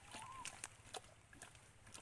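Komodo dragon feeding on a live deer, heard faintly as scattered sharp clicks and snaps of tearing and chewing, with one short rising-and-falling call near the start.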